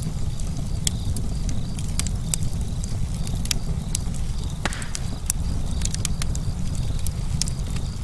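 Outdoor nature ambience: a steady low rumble with scattered sharp crackles and clicks, and a brief rustle about halfway through.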